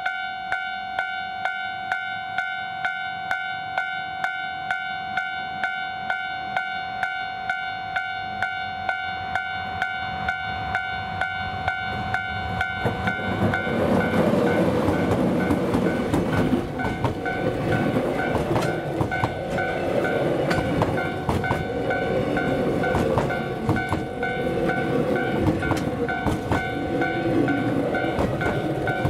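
Level crossing warning bell ringing about twice a second. About 13 seconds in, a JR Freight DF200 diesel-electric locomotive passes close by, and its train of container wagons follows, rumbling and clattering over the rails while the bell keeps ringing.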